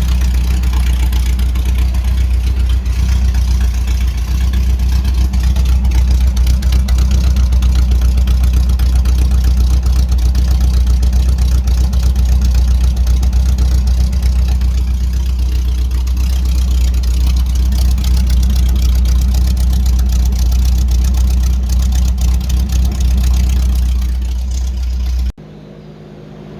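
1975 Porsche 914's air-cooled flat-four engine running steadily and loudly with no muffler fitted; the sound cuts off abruptly near the end.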